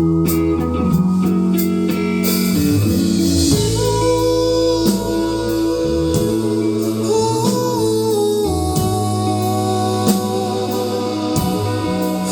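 Live band playing a song: guitar and drum kit, with a held, gliding melody line over them.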